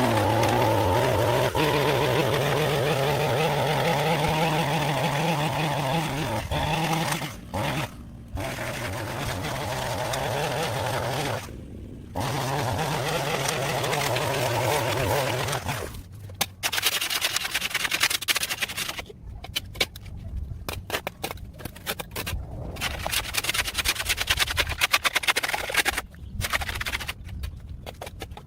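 A small petrol engine revs up and runs steadily at speed, with a few brief breaks. In the second half, irregular scraping and clicking of tool work in dirt and debris.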